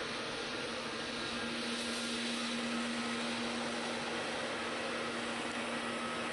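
Jet airliner engine noise heard across an airfield: a steady, even rush with a faint hum that comes in about a second in and fades near the end.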